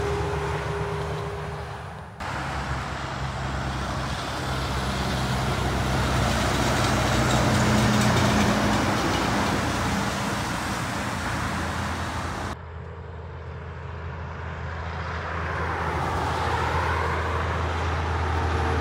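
Kenworth semi-trailer trucks passing on a highway: heavy diesel engine hum under tyre and road noise, swelling as a truck goes by. The sound breaks off and changes suddenly twice, about two seconds in and about twelve seconds in.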